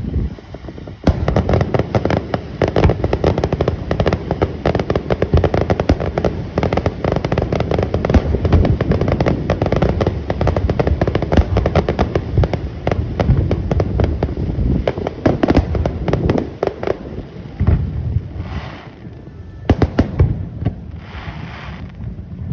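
Aerial fireworks going off in a rapid, dense barrage of bangs and crackles. It starts about a second in and thins out to a few scattered bursts after about seventeen seconds.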